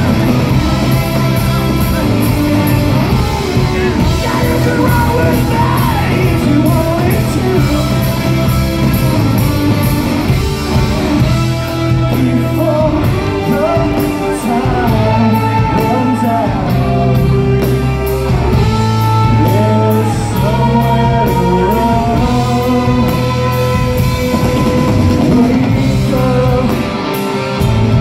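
Rock band playing live in a large hall: electric guitars, bass and drums, with a man singing over them.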